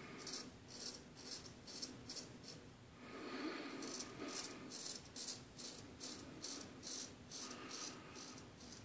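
Anthony Esposito Gold Monkey 777 straight razor scraping through lathered stubble on the upper lip and cheek. It goes in short, faint strokes, about three a second, with a pause of about a second near the middle.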